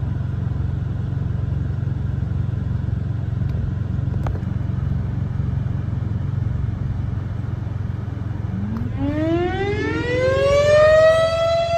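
A vehicle engine idles steadily. About eight and a half seconds in, a Federal Signal STH-10 outdoor warning siren starts up nearby, its pitch rising quickly and then levelling off into a steady wail near the end as it winds up to full speed: the siren is sounding for a tornado warning.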